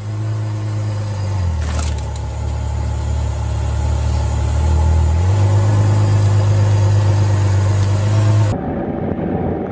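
Ferrari F12berlinetta's V12 running at low revs while the car creeps forward, its deep note shifting in pitch a couple of times, with a brief knock about two seconds in. The engine sound cuts off abruptly near the end.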